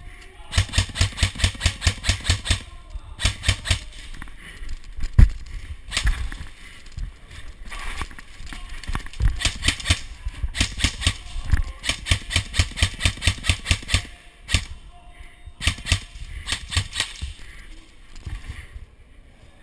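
Airsoft rifles firing in several long, rapid full-auto bursts, with pauses between them and a single sharp, louder crack about five seconds in.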